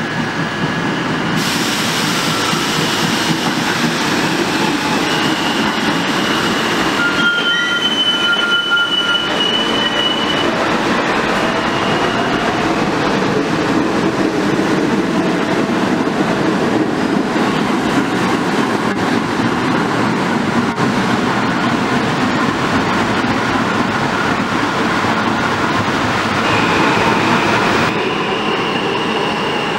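R68A subway train pulling out of the station and running past, a steady rumble of motors and wheels on the rail. Brief high wheel squeals come about seven to ten seconds in, and the sound thins out near the end as the last car leaves.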